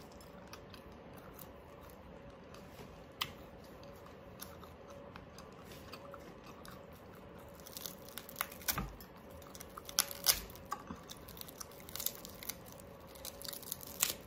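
Quiet chewing of crispy roast pork, then, from about eight seconds in, a run of sharp crackles and snaps as the crisp pork skin is torn off the roast by hand.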